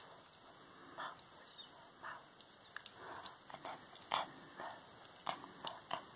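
Close-up whispering: short breathy words one after another, with several sharp clicks among them from about halfway through.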